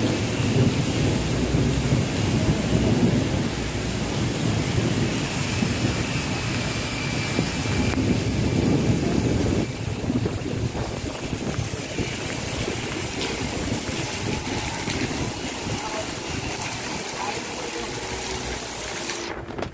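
Heavy rain pouring down on a street, a steady hiss with a low rumble beneath it. It grows a little quieter about ten seconds in.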